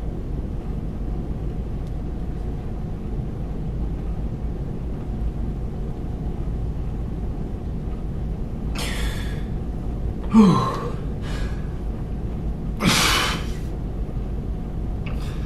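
A man breathing out hard several times while flexing, over a steady low hum. A short grunting exhale that falls in pitch, a little past the middle, is the loudest, followed by a long forceful breath out a few seconds later.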